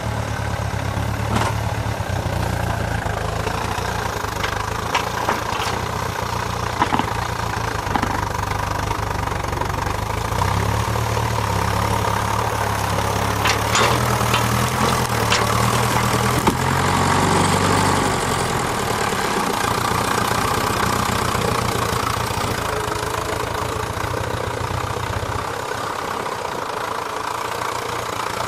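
A tractor engine runs under load as its front-loader grapple handles a heavy split log. It revs up briefly about two-thirds of the way through, with a few sharp knocks along the way, and its low rumble drops away near the end.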